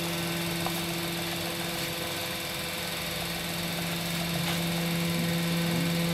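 Sudarshan cutting machine running, its motor and V-belt pulley drive giving a steady hum.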